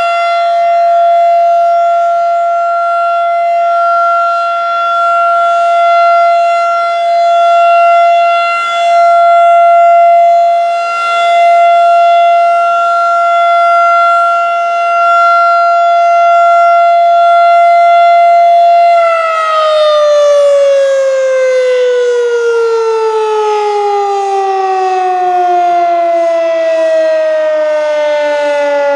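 Federal Signal 2001-DC rotating outdoor warning siren sounding a steady Alert tone, swelling and fading in loudness as it rotates. About two-thirds of the way through the tone stops holding and winds down in a long falling glide: the end of the one-minute alert cycle as the siren coasts down.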